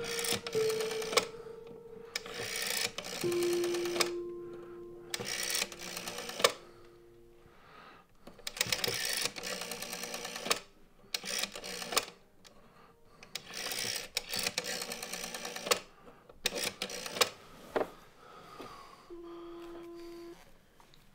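Rotary telephone dial being turned and let run back, again and again: about nine runs of rapid clicking, one per digit, each lasting about a second. A short steady tone sounds near the end.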